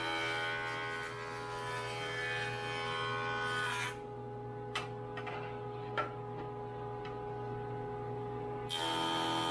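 Jointer running, its cutterhead planing the face of a glued-up table leg blank for about four seconds. The cut stops and the motor runs on with two sharp knocks as the boards are handled, then a second pass starts near the end.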